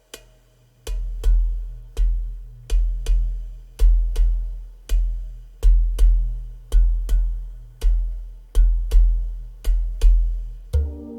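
Instrumental track opening on a slow, deep electronic drum beat, with a sharp click on each hit. Sustained keyboard or synth chords come in near the end.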